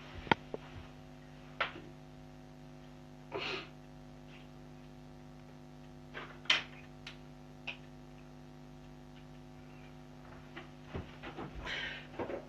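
Steady low electrical hum holding two constant tones, with a few scattered clicks, knocks and a brief rustle as objects are moved and handled; the sharpest knock comes about six and a half seconds in, and the handling noise thickens near the end.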